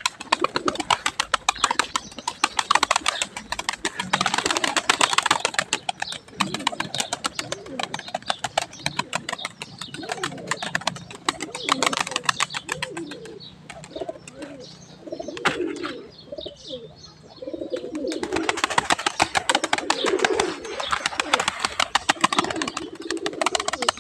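A flock of domestic pigeons cooing on the ground, the calls coming more often in the second half, over a dense patter of small clicks.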